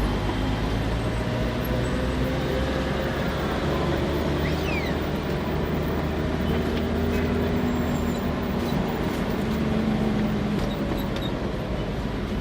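Busy city street traffic: a steady mix of car and bus engines running and passing, with the drone of engine hum and tyre noise.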